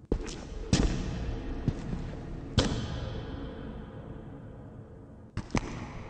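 Slow, uneven heavy footsteps, each thud trailing off in echo, with a quicker pair near the end, over a low steady background drone.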